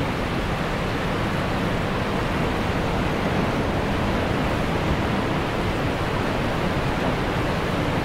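Steady, even rush of a large waterfall's falling water, heaviest in the low end, with no breaks.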